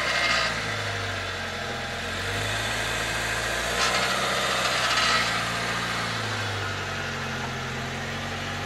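An SUV's engine idling steadily, swelling and easing a few times, with a short rush of hiss about four seconds in.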